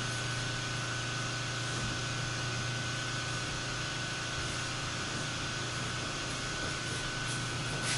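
Steady hiss with a low hum and a thin, steady high-pitched whine, with no distinct events.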